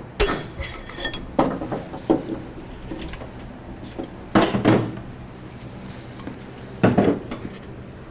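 Hammer tapping out the taper pin of a DeWalt DW788 scroll saw, metal on metal: a quick run of ringing taps in the first second or so, then a few louder, separate knocks.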